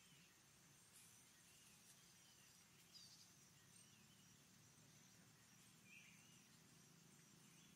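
Near silence: faint outdoor ambience with short, high chirps repeating about once a second over a steady faint high tone.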